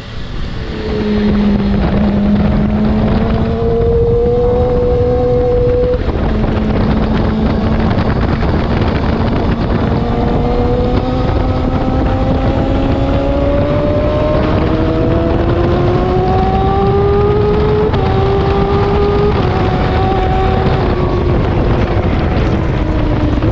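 Racing motorcycle engine heard on board at speed, with wind rushing over the microphone. The engine note climbs slowly for several seconds, then steps down a few times near the end.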